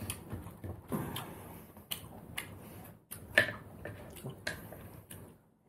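Eating by hand: scattered small clicks and mouth smacks of chewing, with fingers working rice and mutton curry on a plate; one sharper click about three and a half seconds in.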